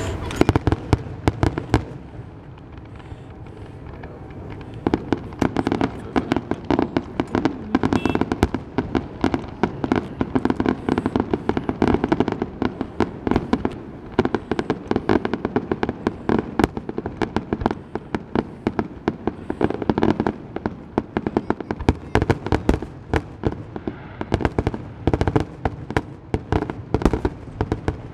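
Aerial firework shells bursting in a rapid barrage of overlapping bangs, thinner for a couple of seconds near the start and then dense and continuous.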